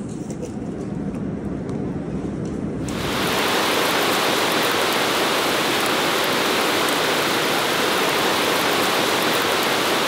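Heavy rain, a steady loud hiss that starts abruptly about three seconds in, after a quieter stretch.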